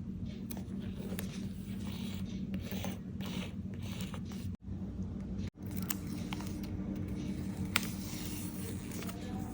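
Paper being handled and scraped in close-up journaling work: irregular scratchy rustles and scrapes over a steady low hum, broken twice by brief dropouts a little past the middle.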